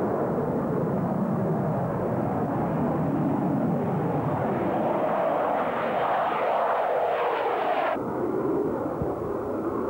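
A-4K Skyhawk's J52 turbojet running as the jet flies low towards the camera with its gear down and passes close overhead, the sound growing brighter and higher-pitched as it nears. About eight seconds in the sound cuts off abruptly and is replaced by another Skyhawk, heard farther off on its approach.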